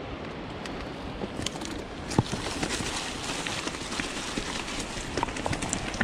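Mountain bike rolling over rocky dirt singletrack: a steady rush of tyre and wind noise with quick clicks and knocks of tyres hitting rock and the bike rattling, getting busier from about a second and a half in.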